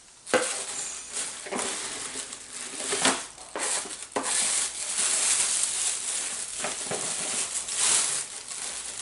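Cardboard box and plastic packaging being opened and handled to take out a boxed clothes iron: loud, continuous crinkling and rustling with a few sharp knocks as the box and its contents are moved.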